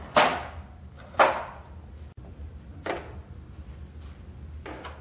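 Plastic paper tray of a Konica Minolta bizhub copier knocking as it is pulled open: two sharp clunks about a second apart, then two fainter knocks.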